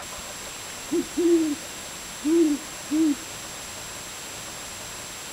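An owl hooting: four low hoots, a short one and a longer one close together about a second in, then two more a little over a second later.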